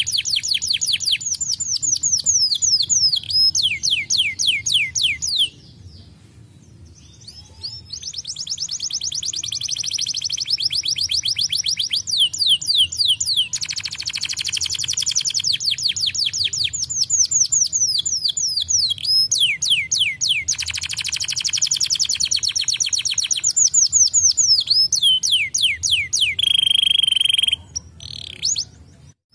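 Domestic canary singing: long phrases of fast trills made of rapidly repeated, high, downward-sweeping notes. There is a short pause a few seconds in, and a brief held whistle near the end.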